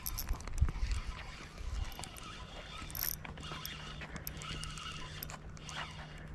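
Spinning reel being cranked to retrieve a lure, turning with light mechanical clicks. Low wind rumble on the microphone in the first two seconds.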